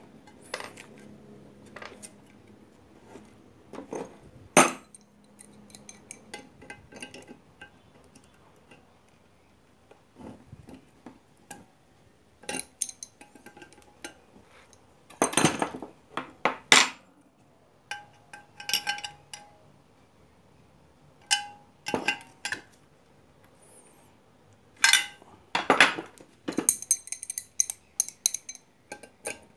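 Metal parts and tools of an electric dry iron being handled during reassembly: scattered clinks and knocks that come in several bunches, some with a short metallic ring.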